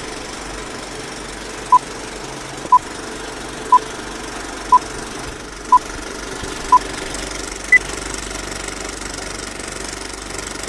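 Vintage film-projector clatter running steadily under a film-leader countdown. Six short beeps come one a second, and a seventh, about an octave higher, closes the count.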